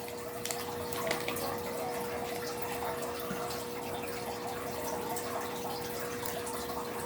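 Steady background noise, like a running tap, with a faint steady hum underneath.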